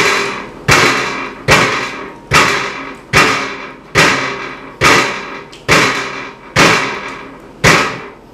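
A fist pounding on a glass tabletop: about ten heavy thumps a little under a second apart, each ringing out briefly.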